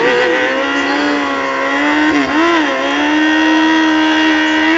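Motorcycle engine held at steady high revs, with a brief drop and blip of the throttle a little over two seconds in.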